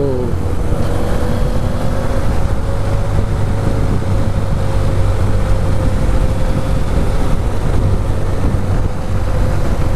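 Motorcycle riding along at a steady cruising speed: a continuous engine drone with a steady mid-pitched hum, under rushing wind noise on the camera's microphone.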